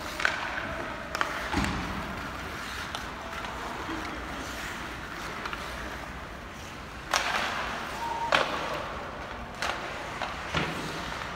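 Hockey game play: sticks striking the puck and pucks and players hitting the boards in sharp cracks and thuds scattered through, with a burst of skate scraping about seven seconds in.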